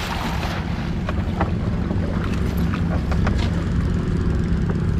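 Small boat engine running steadily with a low drone, with a few light knocks over it.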